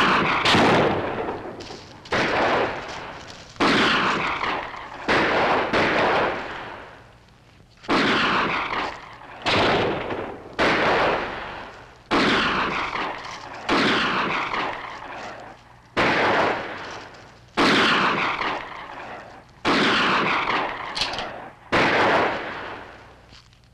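A string of gunshots, one every second or two, each ringing out in a long echo: a sustained exchange of fire.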